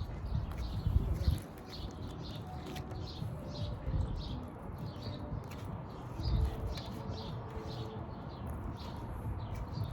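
A bird chirping over and over, short high chirps about two a second. Low rumbling bumps come about a second in and again a little past the middle.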